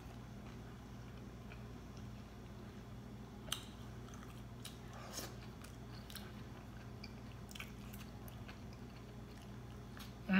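Quiet chewing of a mouthful of crisp green salad, with a few faint crunches and clicks scattered through.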